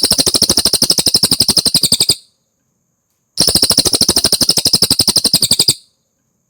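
Cililin singing: two rapid high trills, each a fast run of repeated notes lasting about two and a half seconds, with a short pause between them.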